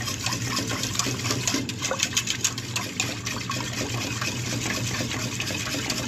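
A metal spoon stirring a thin ube milk mixture in a stainless steel pot, with repeated clicks and scrapes of metal on the pot and the liquid sloshing. A steady low hum runs underneath.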